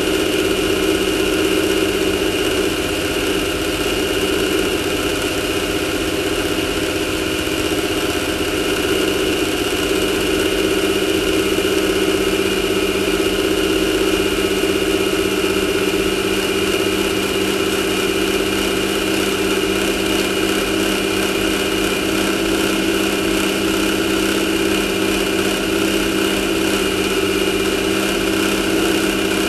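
Off-road race buggy's engine running at a steady speed, with an even, unchanging pitch and no revving.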